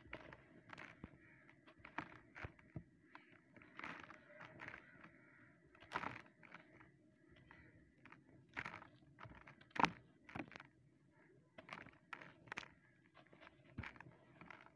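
A dry, dusty, concrete-like chunk crunching and crumbling in bare hands, with gritty crumbs and dust pouring and trickling down. The crunches come irregularly, the loudest about six seconds in and just before ten seconds.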